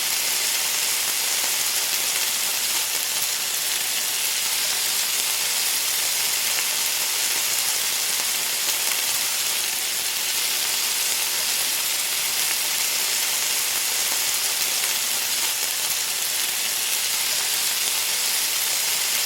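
Hot food sizzling with a steady, dense hiss.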